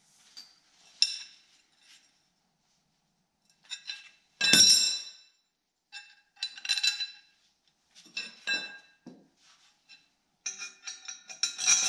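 Flat steel bar levers clinking and ringing against each other and the square steel tubing as they are handled and fitted onto a bolt. Several separate clinks, the loudest about four and a half seconds in with a ringing tone, and a quick run of clinks near the end.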